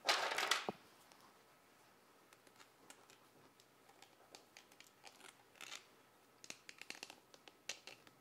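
Hands handling hair and plastic perm rods while winding a perm wrap: a short burst of rustling at the start, then faint scattered clicks and rustles.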